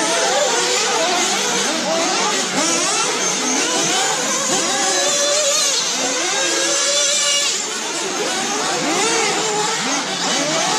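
Several radio-controlled race cars running together, their motors whining in overlapping pitches that rise and fall as they accelerate and slow around the track.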